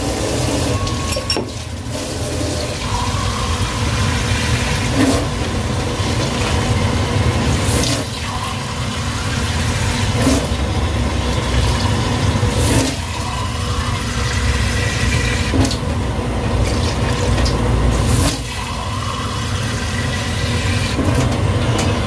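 Water being poured into a pot of sautéed meat to make the soup broth, over a steady low rumble, with several short knocks a few seconds apart.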